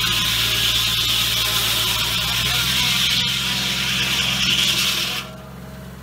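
Foley Belsaw M-14 circle sawmill blade ripping through a large pine log: a loud, steady, high-pitched cutting hiss over a low hum. About five seconds in the blade clears the end of the log and the cutting noise drops away, leaving the blade spinning freely with a quieter low hum.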